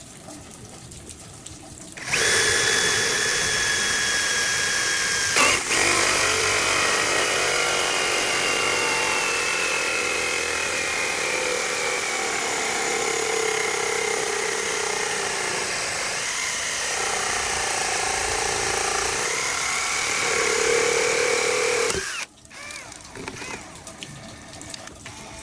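Electric drill running under load as it bores into wood, its motor whine shifting slowly in pitch. It starts about two seconds in, gives a short click a few seconds later, and cuts off suddenly near the end.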